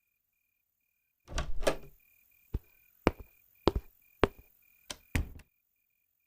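Sound effect of a door opening and shutting, followed by about six footsteps spaced about half a second apart.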